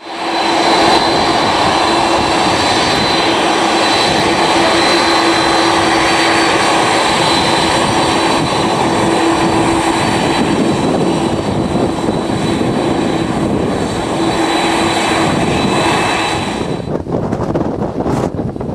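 Airliner jet engines running at high power at close range: a loud, steady noise with a steady high whine. It eases off about sixteen seconds in.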